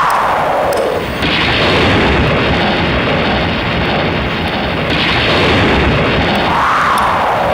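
Dramatic stage sound effect played loud over the theatre's loudspeakers: a rumbling, booming noise with a whoosh that rises and then falls in pitch at the start, and again near the end.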